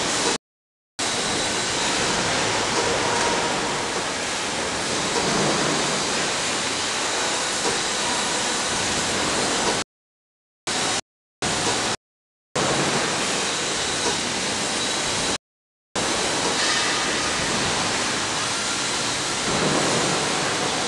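Steady, even rushing noise of a factory floor, with no distinct machine strokes or rhythm. The sound cuts out abruptly to silence several times for a fraction of a second, near the start and again in the middle.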